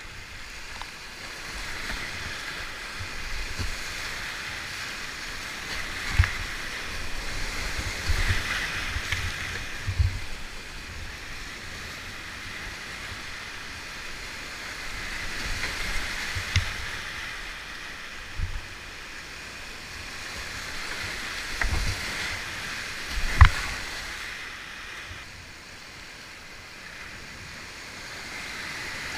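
Whitewater rapid rushing around a kayak, a steady rush of fast water over rocks. Irregular low thumps every few seconds, with one sharp knock late on, the loudest sound.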